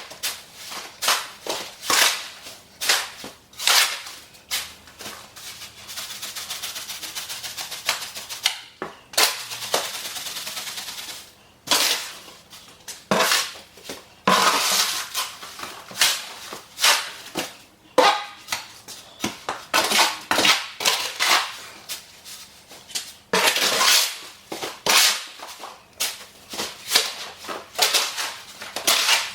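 Mortar mix being mixed by hand, a tool scraping and chopping through the stiff mix in quick, irregular strokes. About six seconds in there is a steadier grating stretch lasting some five seconds before the separate strokes resume.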